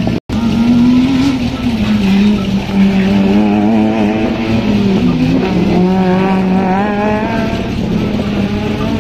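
Car engine held at high revs while the tyres squeal in a wavering tone through the bale chicane. The sound cuts out briefly just after the start.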